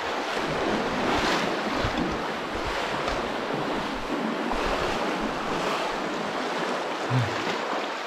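Steady rush of falling water from a waterfall, an even, unbroken noise.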